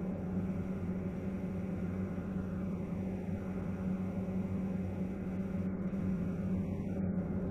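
Steady in-flight drone inside a KC-135R tanker's boom pod: engine and airflow noise with a constant low hum that does not change.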